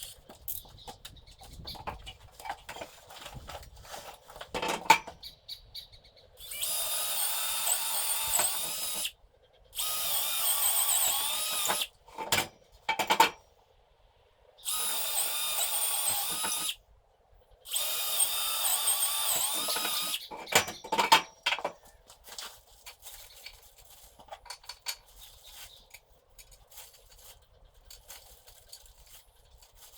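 A power drill running in four bursts of about two to three seconds each, its motor whine wavering in pitch as it works, with a few sharp knocks of tools and parts being handled in between.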